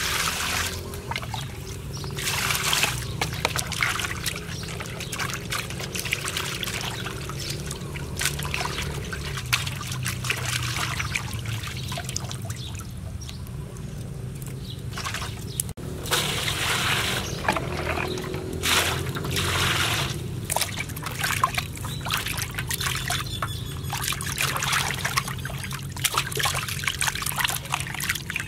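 Water pouring from a scoop and splashing in an aluminium basin as raw pork belly is rinsed and scrubbed by hand, coming in irregular bursts of sloshing and trickling.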